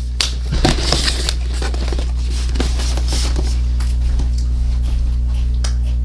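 Packaging being handled, with scrapes and rustles in the first second and a half and scattered small clicks after, over a steady electrical mains hum.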